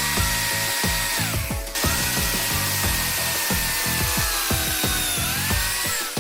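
An electric power tool running steadily, its motor whine dropping in pitch twice as it comes under load and then recovering, over background music with a steady beat.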